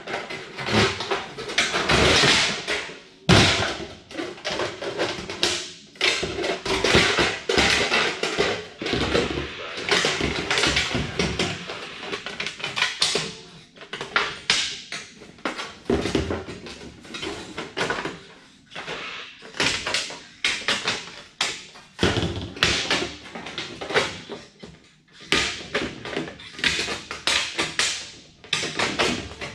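Hand snips cutting around a thin sheet-metal duct pipe: a dense run of irregular crunching clips, with the metal rattling and flexing as the pipe is turned, pausing briefly now and then.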